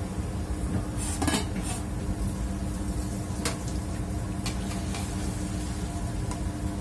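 Metal ladle clinking and scraping against a large metal stock pot while stirring beef cubes: a few sharp clinks, the loudest cluster about a second in, over a steady low hum.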